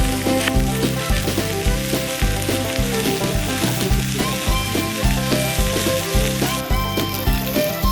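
Food sizzling and frying in a pan, with background music carrying a steady beat of about two pulses a second.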